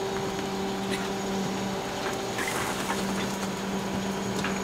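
Hydraulic packer of a 1995 Ford L8000 rear-loader garbage truck cycling, a steady hum from the engine-driven hydraulics with a few sharp snaps of brush being crushed under the blade. The truck's throttle advance is malfunctioning, so the packer runs slowly at idle speed.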